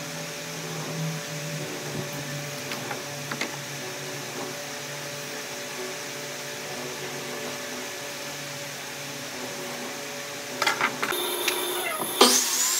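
Steady low mechanical hum with a few light taps in a woodworking shop. Near the end come a clatter of clicks, a loud knock and a quick rising whine as a power tool starts up.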